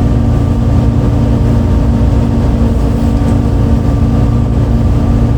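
MAN D0836 LOH 63 inline-six diesel of a 2008 MAN Lion's City A37 bus, heard from inside the bus, running steadily at an unchanging pitch with a low rumble and a steady whine. This is the odd engine note that this particular bus had on the day of the recording.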